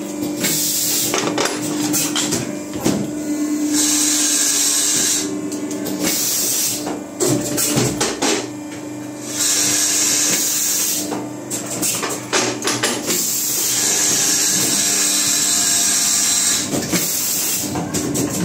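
Automatic wire-soldering machine running: a steady hum under repeated hissing stretches a few seconds long, with scattered clicks and knocks.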